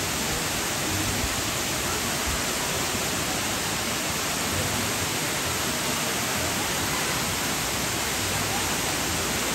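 A steady, even rushing hiss with no breaks or distinct events.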